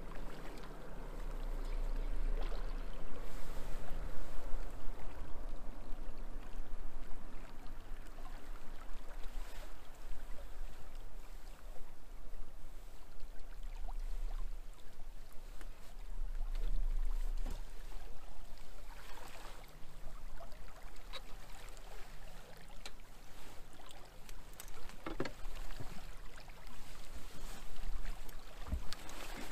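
Wind and river water around a small fishing boat, with a low hum fading out in the first few seconds. Several sharp knocks near the end as the landing net and gear are handled against the boat.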